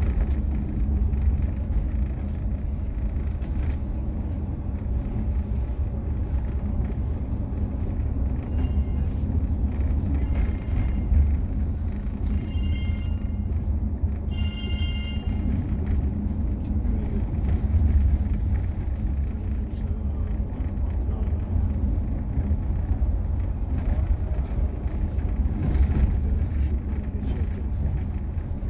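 Inside a Mercedes-Benz Travego 15 coach on the move over a rough, unpaved road: a steady low rumble of engine and tyres, with a few brief high-pitched tones around the middle.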